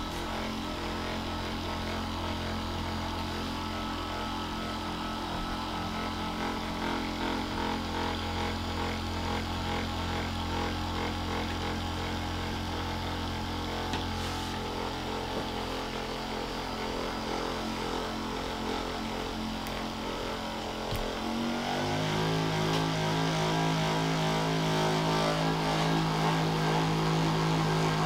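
Handheld percussion massage gun running against a person's back, a steady motor hum. About 21 seconds in, its pitch steps up and it gets louder.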